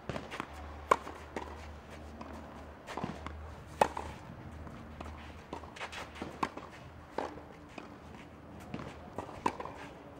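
Tennis ball struck with a racket in a baseline rally, a sharp hit roughly every three seconds and loudest about a second and about four seconds in, with fainter hits and bounces in between. Shoes shuffle and scuff on the clay court between strokes.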